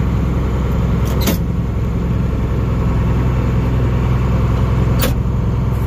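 Tractor engine running steadily, heard from inside the cab while pulling a row cultivator. Two sharp clicks come through, about a second in and again near the end.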